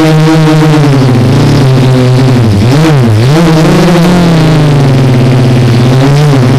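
Quadcopter's electric motors and propellers whining, heard right beside them from the onboard camera. The pitch dips and swings back up twice in quick succession about two and a half seconds in as the throttle changes, then holds steady.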